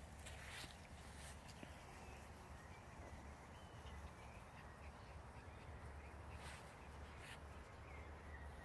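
Near silence: faint outdoor background with a steady low rumble and a few brief, faint distant calls.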